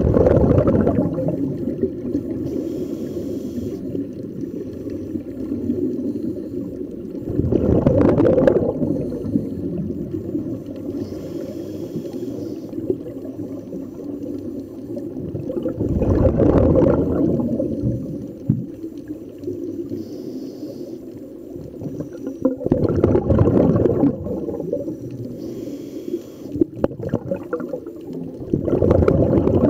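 Scuba diver's exhaled bubbles from a regulator, recorded underwater: a bubbling rumble that swells about every seven seconds, five times, with a low muffled water rush between the breaths.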